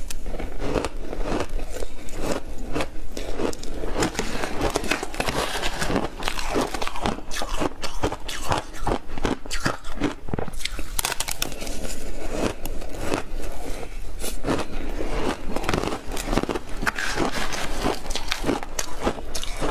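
Crunchy block ice coated in matcha milk powder being bitten and chewed: a dense, continuous run of sharp cracks and crunches.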